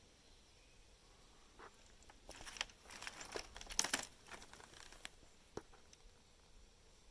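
A run of crackling, crinkling rustles lasting about three seconds, loudest around the middle, followed by a single sharp click.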